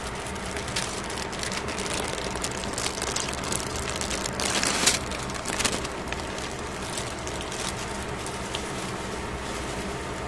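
Aluminium foil crinkling and crackling as a foil cover is lifted off a pan, loudest about halfway through, over a steady low hum.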